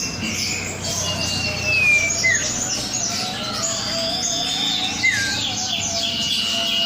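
A cipow (sirtu) songbird in full, vigorous song: a fast, unbroken run of chirps mixed with clear held whistles and short notes that slide downward. This is the kind of challenging song used as a master recording for training other birds.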